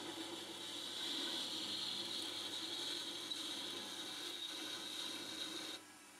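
Metal lathe running with a boring bar cutting the inside of a steel workpiece: a steady hiss with a high whine over a lower hum, dropping sharply near the end.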